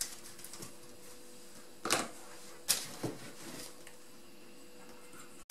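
A few sharp taps and clacks of a plastic dough scraper and hands working on a wooden table: one about two seconds in, then two more within the next second or so, over a faint steady hum in a quiet room.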